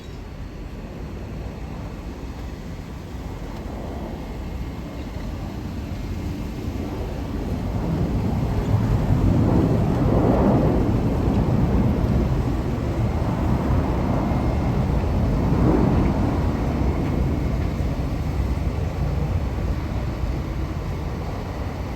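Boeing 737-800 jet engines rumbling, swelling to their loudest around the middle and easing off toward the end.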